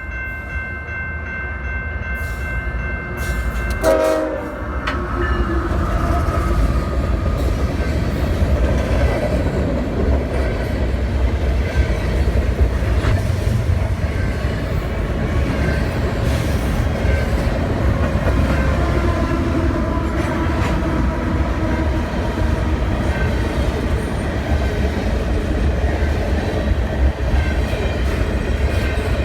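Canadian Pacific diesel freight locomotive's air horn sounding a steady chord, which drops in pitch about four seconds in as the locomotive passes. The horn then trails off and the train's engines and rolling cars rumble past with a clickety-clack of wheels over the rail joints.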